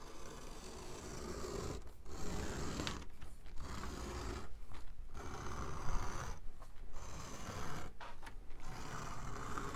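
Hobby knife blade drawn through Monokote heat-shrink covering film along a steel straight edge, trimming it: a series of scraping strokes, each a second or two long, with short pauses between as the hands move along.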